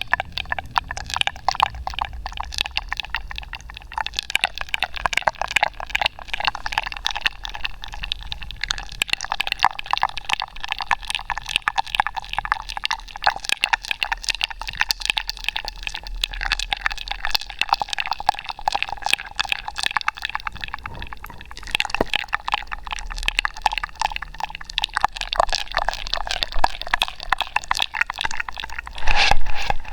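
Close-miked wet ASMR mouth sounds: a dense, continuous stream of quick clicks and smacks, louder for a moment near the end.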